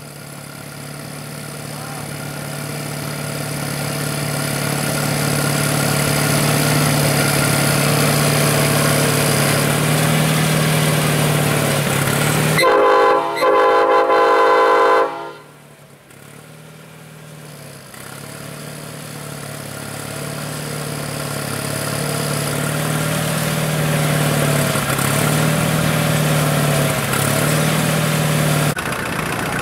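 Railroad speeder's engine running with a steady hum that grows louder as it comes closer. About halfway through its horn sounds two loud blasts back to back, then the engine hum carries on.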